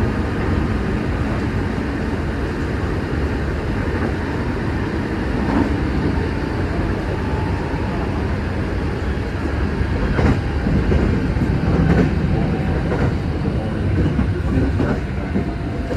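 Passenger train running along the track, a steady low rumble of wheels on rails with a few clacks over rail joints.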